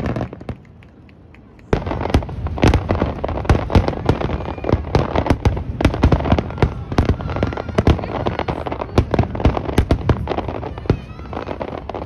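Aerial fireworks: after a short lull about a second in, shells burst in rapid succession, a dense string of sharp bangs and crackles with some louder booms among them.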